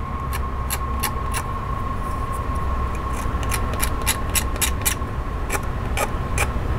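Irregular short clicks and scrapes of a hand tool cleaning a mold seam off a small plastic model-kit part, over a steady thin tone and a low background rumble.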